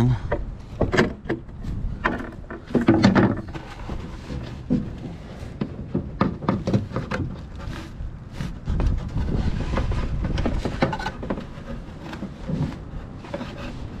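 Irregular clicks, knocks and rustling from hands moving and straightening wiring inside a boat's compartment, with a few louder knocks about three seconds in.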